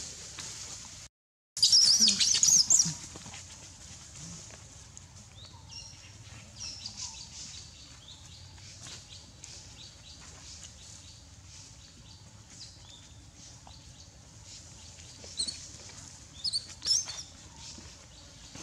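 Young macaque's high-pitched squealing screams: a loud wavering burst about two seconds in, scattered fainter squeaks after it, and a few more sharp squeals near the end.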